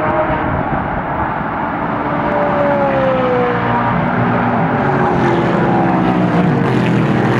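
A pack of sports-car race cars drives by one after another, engines running hard at high revs. The engine notes slide down in pitch several times as cars pass.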